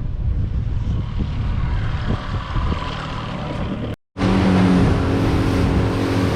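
Boat motor running under rough, gusting noise, which cuts out abruptly about four seconds in and comes back as a louder, steady motor drone with a clear low hum.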